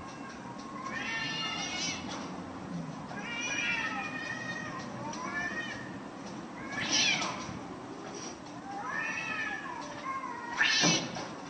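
A cat yowling in a series of drawn-out, wavering caterwauls, one about every two seconds, with two short, louder screeches, one midway and one near the end.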